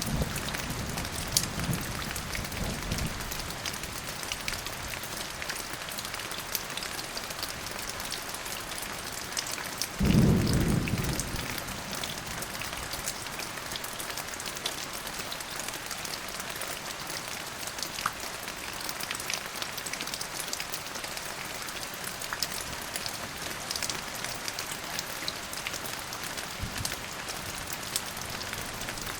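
Steady rain falling, with a low rumble of thunder dying away in the first few seconds. About ten seconds in, a sudden louder thunderclap rumbles for a second or two.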